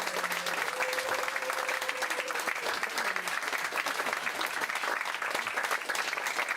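Audience applauding steadily after a song ends, with a faint held tone dying away in the first couple of seconds.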